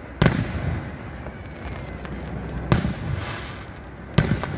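Aerial firework shells bursting overhead: three sharp booms, each followed by a rumbling echo.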